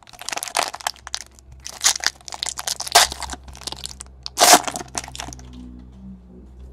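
Trading-card pack wrapper crackling and crinkling as it is handled, in a rapid, uneven string of sharp crackles for about five seconds. Faint background music comes in near the end.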